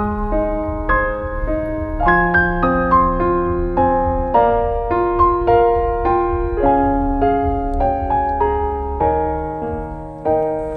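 Background music: a gentle piano melody with held bass notes, one note struck after another.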